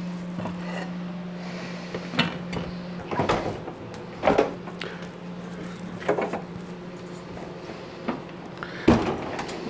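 Kitchen handling sounds: a lidded stainless frying pan set down on a glass-ceramic cooktop, with several other separate knocks and clunks of cupboards or cookware. A steady low hum runs underneath.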